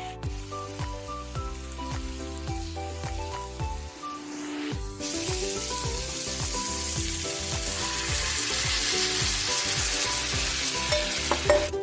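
Banana flower and potatoes frying in oil in a pan: loud sizzling that starts abruptly about five seconds in and grows, with water poured into the hot pan near the end. Background music plays throughout.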